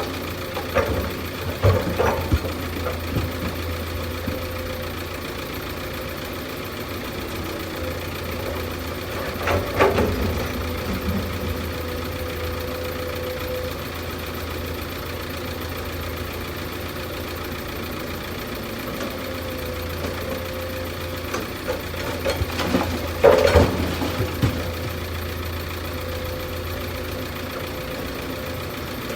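Heavy diesel engine of an excavator idling steadily with a low, even hum. A few louder knocks or clanks stand out: about two seconds in, near ten seconds and near twenty-three seconds.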